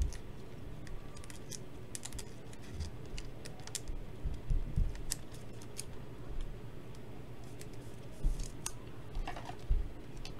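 Irregular light clicks and taps of typing on a computer keyboard, with a few heavier desk thumps.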